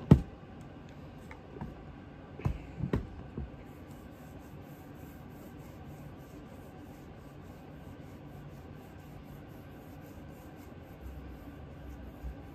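A green pad rubbed back and forth over a Remington 1100 shotgun's steel receiver, working in cold bluing solution: faint scrubbing strokes, about three a second. A sharp knock at the very start and a few lighter knocks about two and a half seconds in.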